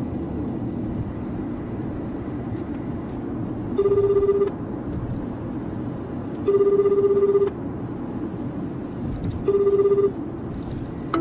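Telephone ringback tone of an outgoing hands-free call, played through a Toyota Prius's car audio: a wavering low tone in three pulses about three seconds apart, the last one cut short as the call is ended. A steady low cabin hum runs underneath.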